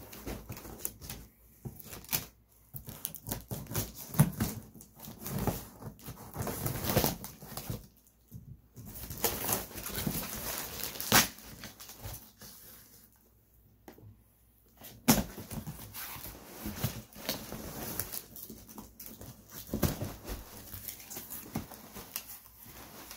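A cardboard shipping box being torn open by hand: packing tape and flaps ripped, then brown paper wrapping and crumpled newspaper packing rustling and crinkling as it is pulled out. Irregular rips and crackles, with a few sharp tears and a couple of short pauses.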